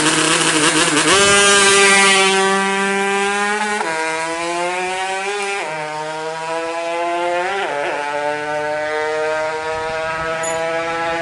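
Tuned Yamaha RX-King's two-stroke single-cylinder engine running at high revs. Its pitch climbs slowly and drops sharply three times as it shifts up through the gears.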